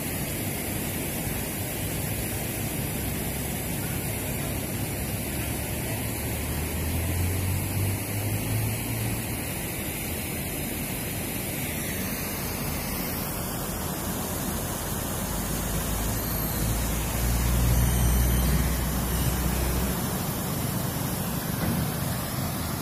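Steady rushing of river water spilling over a low concrete weir, mixed with road traffic passing on the bridge. A low rumble swells up twice, about a third of the way in and again past the middle.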